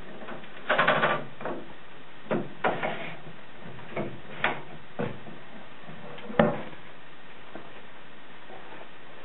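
Wooden knocks, clunks and scraping as the wooden fretwork music desk and cover of an antique grand piano are handled and set up. There are about eight separate knocks, with a longer scrape about a second in and the sharpest knock about six and a half seconds in.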